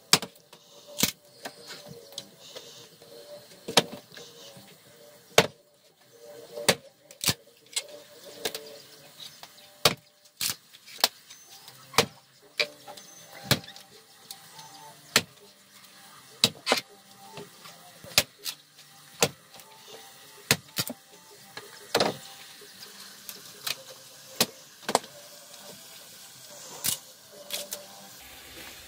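Firewood being split and broken apart by hand: sharp, irregular cracks and snaps of wood, about one or two a second.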